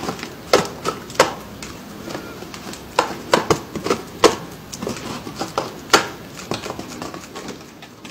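Handheld cardstock paper dragon puppet being worked for ASMR: its paper jaws clapping shut in irregular sharp snaps, a few much louder than the rest, with paper rustling and crinkling in between.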